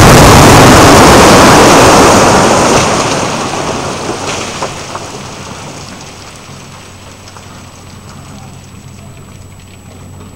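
Aftermath of a quarry blast: a loud rumbling roar of the explosion and broken rock coming down, which starts fading about two seconds in and dies away over several seconds into scattered rattling of small stones settling.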